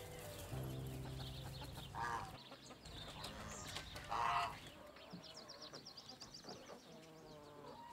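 Hens clucking in a chicken coop, quietly, with two louder clucks about two and four seconds in.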